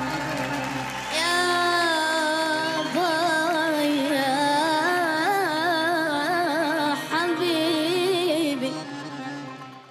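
A singer's voice carrying an ornamented, melismatic melody with wide vibrato, the notes bending and trilling between held tones. It fades out near the end.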